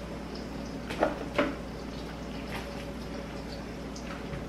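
Two short knocks close together about a second in, with a few fainter ticks later, as a knife cuts up a sweet onion. A faint steady hum runs underneath.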